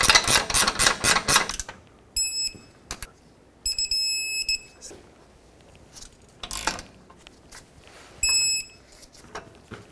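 A hand ratchet clicks rapidly for about a second and a half as it spins a control-arm bolt in. Then an electronic torque wrench beeps three times, twice in long beeps and once more briefly near the end, signalling that the set torque has been reached on the bolts. A single knock comes between the beeps.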